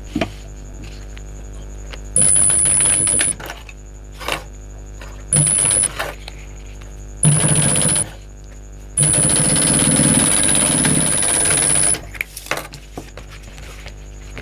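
Primex high-speed single-needle industrial sewing machine stitching in four short runs, the last and longest about three seconds, each run carrying a high steady tone. Light clicks of fabric being handled and repositioned come between the runs.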